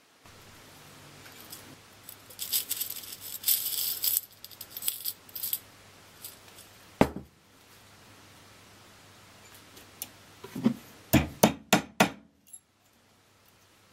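Small brass sawtooth picture hangers jangling and rattling in a glass jar for a few seconds, followed by a single sharp click and then a quick run of sharp metal knocks near the end, over a steady low hum.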